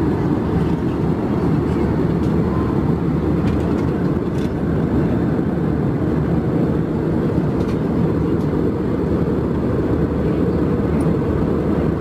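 Airbus A320 cabin noise in flight: a steady, low rush of airflow and engine noise heard from a seat inside the economy cabin.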